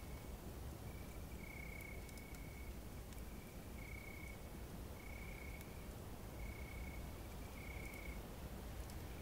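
Crickets chirping in short even trills at one steady pitch, about one a second, over a low steady background hush, with a few faint campfire crackles.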